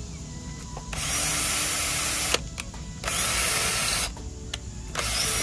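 Power drill driving screws into the pavilion's timber framing, run in three bursts of one to one and a half seconds each with short pauses between.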